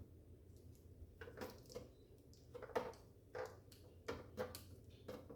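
Small plastic clicks and rattles of a taillight wiring connector being worked loose by its locking tab, about ten irregular faint clicks in the second half.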